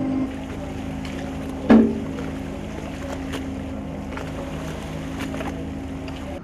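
Steady drone of a steel purse-seine fishing boat's engine and deck machinery while the net is hauled. A loud clank with a short ringing tail comes about a second and a half in, with a few lighter knocks later.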